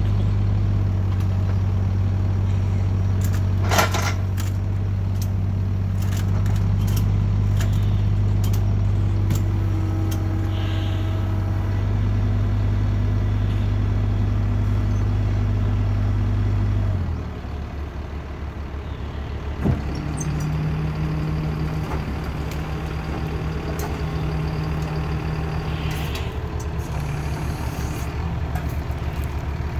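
A hydraulic backhoe's engine runs steadily under throttle, then drops to a lower, rougher idle a little past halfway. A sharp metal clank comes about 4 s in and another near 20 s.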